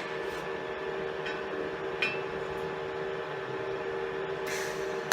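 A steady machine hum made of several even tones, with a few light clicks and a short rustle near the end.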